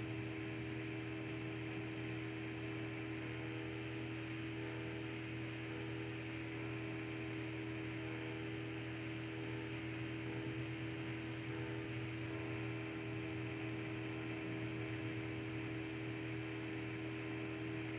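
Steady electrical hum with a few fixed tones over a faint even hiss.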